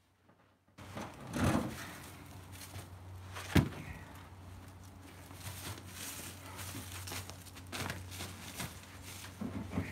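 Heavy ash firewood rounds being handled and stacked: a dull thud about a second and a half in, then a single sharp wooden knock about three and a half seconds in as a round is set down on the pile. A few lighter knocks follow near the end.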